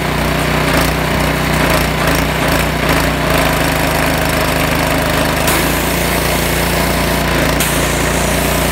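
A pressure washer's Honda small engine running steadily under load, with the hiss of high-pressure water spraying from the wand; the hiss grows stronger about five and a half seconds in. The repaired pump is holding pressure again.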